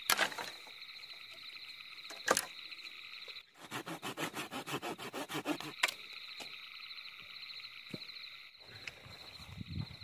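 Night insects chirping steadily in a high, pulsing chorus, with a few sharp knocks and a quick run of rattling strokes in the middle.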